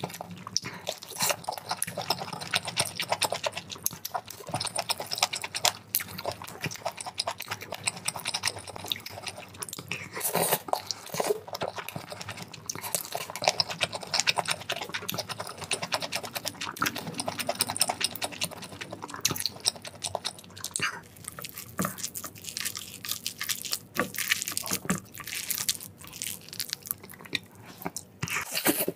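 Close-miked mukbang eating sounds: a person biting into and chewing a grilled sausage and instant noodles, a steady run of quick sharp mouth clicks and chewing strokes.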